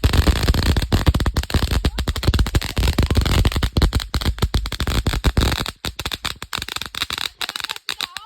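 Popcorn-effect firework fountain (a Vulkan) firing: a dense stream of rapid crackling pops with a low rumble, thinning to scattered pops about six seconds in.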